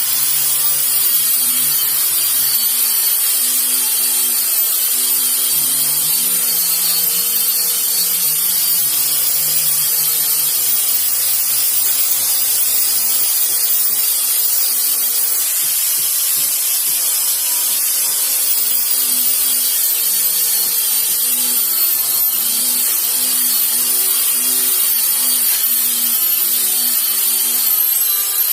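Electric power sander running on wood: a steady high whine over the hiss of the abrasive rubbing the surface.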